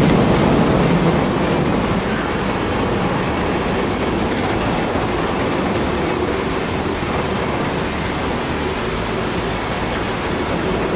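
Cooling tower collapsing in a controlled demolition: a long, loud, steady rumble that starts at full strength and eases slightly over the seconds that follow.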